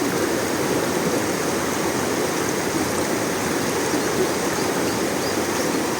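River water rushing steadily over its bed.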